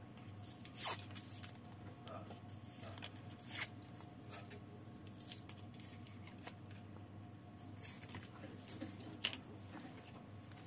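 Scattered small clicks and scrapes of hands handling the opened battery pack and its cells during testing, over a steady low hum.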